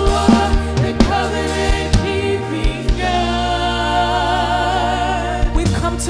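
Live gospel worship song: a woman sings lead into a microphone over a band and backing singers. Drum hits keep time for the first few seconds, then the band drops to held keyboard and bass chords under a long sustained sung note, and the drums come back in near the end.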